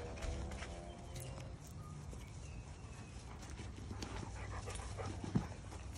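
A dog whines briefly at the start, then small clicks and scuffs follow as it mouths and noses a chewed ball with a stick stuck in it, with one louder knock near the end.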